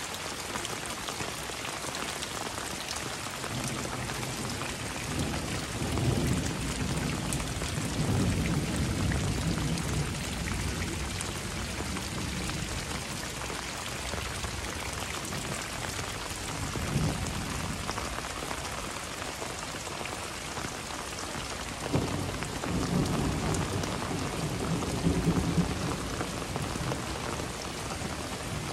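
Heavy tropical rain falling steadily, with low rumbles of thunder rolling in several times: a long one about a fifth of the way in, a short one past the middle, and another long one near the end.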